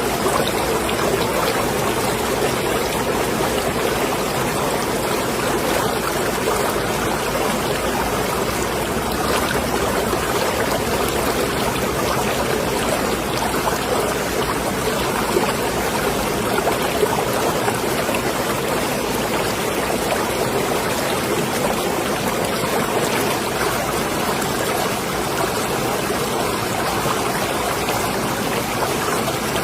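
Water in a marina sloshing and trickling steadily, with no distinct splashes or knocks.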